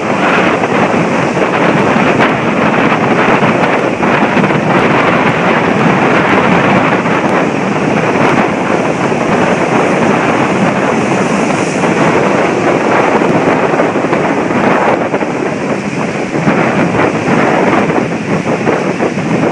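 Strong storm wind buffeting the microphone over heavy surf breaking on the beach, loud and steady.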